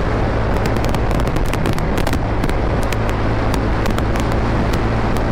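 TVS Ntorq 125 Race XP scooter's single-cylinder engine running steadily at cruising speed, around 70 km/h, under road and wind noise, with frequent small crackles on the microphone.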